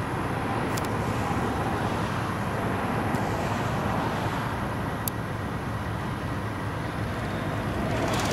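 Jet engines of an American Airlines Airbus A320-family airliner running as it rolls along the runway: a steady rush of noise with a faint whine, growing slightly louder near the end.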